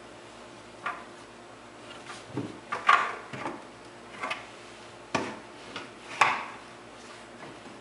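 Scattered knocks and bumps on a wooden kitchen cabinet as a toddler climbs and shifts about inside it, knocking against the shelf and door; about six knocks, the loudest about three seconds in and again about six seconds in.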